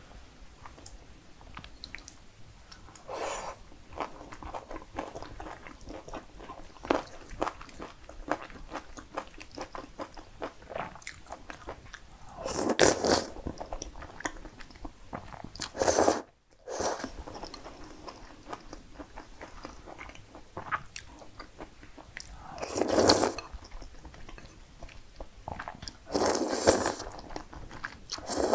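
Close-miked eating sounds: several loud slurps of cream-sauce pasta noodles, with wet chewing and small mouth clicks between them.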